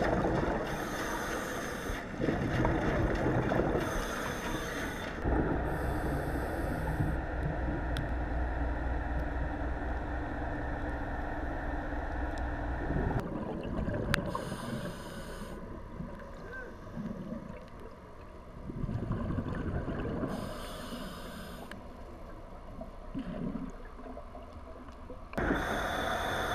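Underwater scuba breathing: a hiss from the regulator and gurgling bursts of exhaled bubbles every few seconds. A low steady machine hum runs under it for a stretch in the first half.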